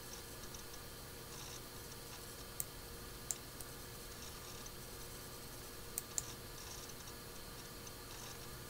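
Faint steady hiss and low hum of an old radio-broadcast recording, with a few scattered sharp clicks.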